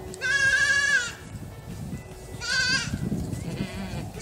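Goat kid bleating: a long, wavering, high-pitched cry about a quarter second in, then a shorter one about two and a half seconds in.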